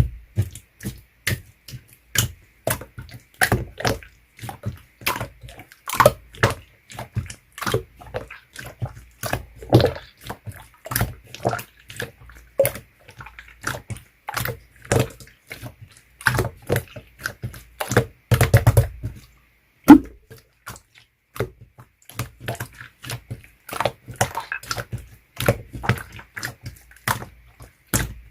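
Clear slime being squeezed and worked by hand, making irregular sharp clicks and pops, a couple a second, with a few louder bursts.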